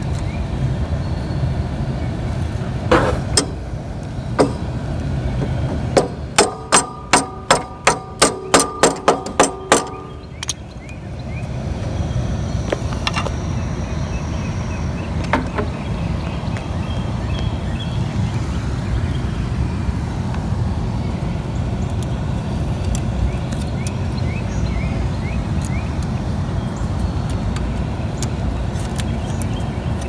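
A quick run of about ten sharp, ringing metal taps, roughly two a second, as the pivot pin is tapped into the mower's shift lever. One lone tap comes a few seconds before the run. A steady low rumble lies underneath.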